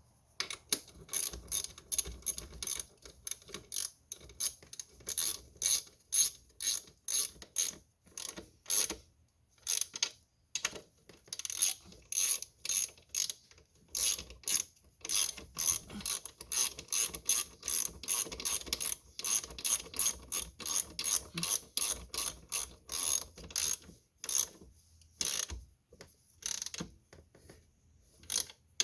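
Hand ratchet wrench clicking through repeated strokes, about two a second, with a couple of short pauses.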